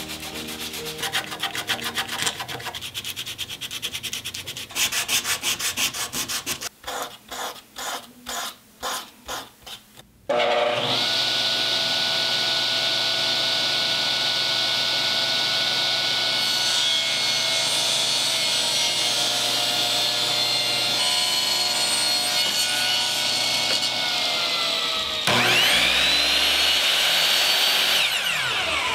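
Hand sanding of wood, back-and-forth strokes about one a second. Then a table saw starts and runs steadily while ripping a thin wooden strip along the fence. From about 25 s a miter saw whines up to speed, cuts, and spins down near the end.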